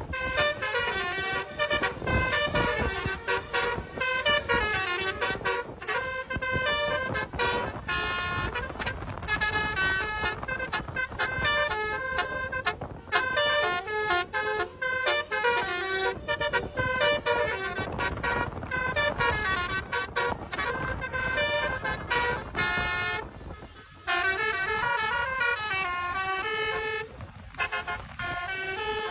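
Bus telolet horns, multi-tone basuri air horns, playing quick melodic runs of notes one after another with short breaks between them, over the low rumble of the bus engines.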